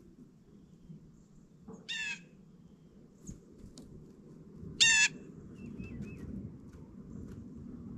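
Blue jay giving two short, harsh calls about three seconds apart, the second louder, over a low steady background rumble.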